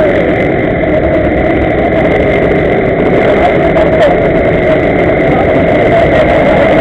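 Small engines of several gas-powered stand-up scooters (Go-peds) idling together in a steady, unbroken run.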